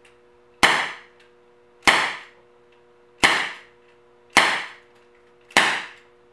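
Crosman SNR357 CO2-powered air pistol revolver firing five shots, a little over a second apart, each a sharp crack with a short fading tail.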